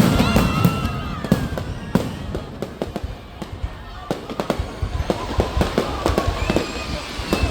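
Fireworks going off: a dense, irregular run of bangs and crackles, loudest at the start, thinning out about three seconds in and then building again.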